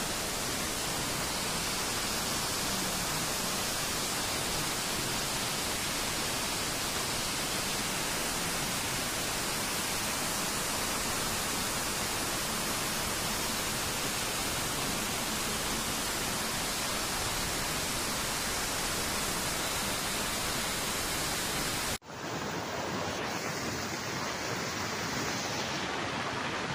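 Steady rushing of a muddy flash-flood torrent after a cloudburst, a dense unbroken hiss of fast water. About 22 seconds in it cuts out for a moment and comes back duller.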